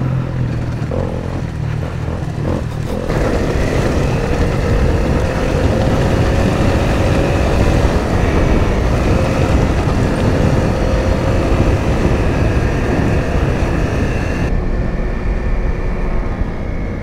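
Single-cylinder engine of a Honda CRF dual-sport motorcycle running under way, with wind noise on the microphone. The wind noise comes in strongly about three seconds in and falls away a couple of seconds before the end as the bike slows.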